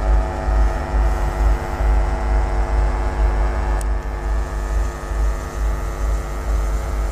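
EP1M electric locomotive hauling a passenger train away, its traction equipment giving a steady drone of several held tones over a low rumble. A brief click about four seconds in.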